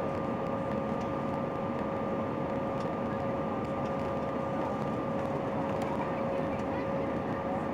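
Steady jet-engine cabin noise inside an Airbus A319-131 with IAE V2500 engines: an even rush with two steady whining tones, the higher one fading about five seconds in.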